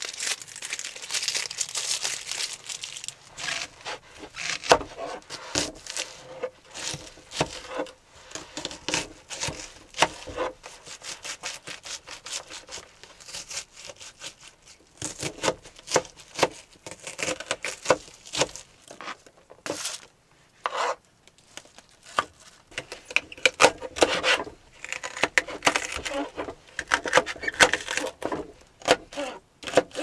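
Irregular rustling, crinkling and sharp knocks, the sound of things being handled and moved about, with a short lull a little past the middle.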